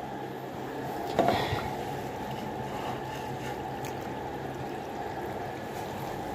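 A steady low hum and rushing noise, with a single short knock about a second in.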